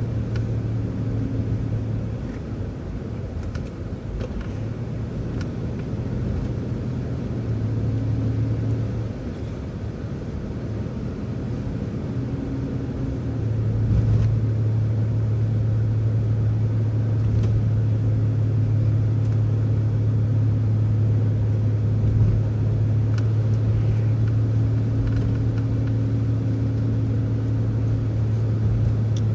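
City transit bus driving, heard from inside: engine drone and road noise with a steady low hum. The hum dips a few times early on, then holds steady and slightly louder from about halfway through.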